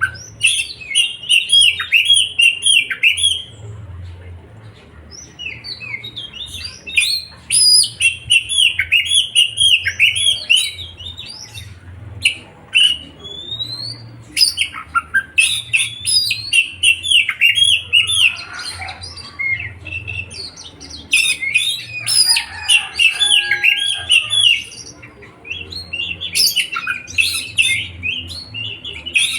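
A songbird singing in fast bouts of sharp, high chirps and trills, broken by short pauses.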